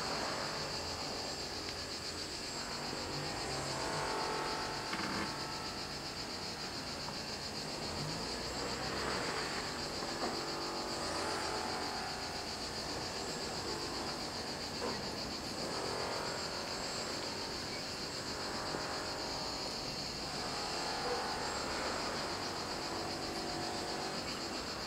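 Cicadas buzzing in the trees in one steady, unbroken high-pitched drone.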